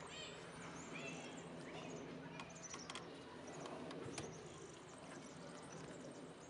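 Quiet handling sounds: a few faint clicks and taps from hands working a fuel-filter hose fitting over a plastic bottle, with faint high chirps in the background.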